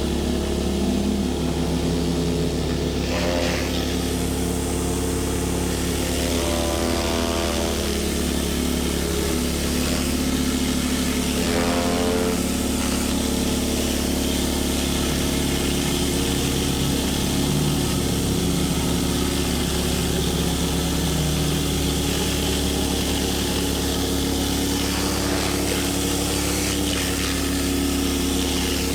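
Pressure washer's engine running steadily under constant load.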